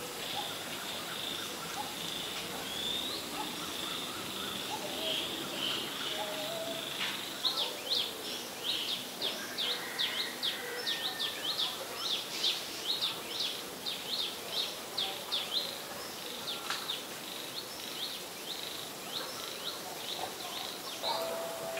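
Natural outdoor ambience: a steady high insect drone, joined about seven seconds in by a fast run of short, high chirps, two or three a second, lasting about eight seconds, with a few more near the end.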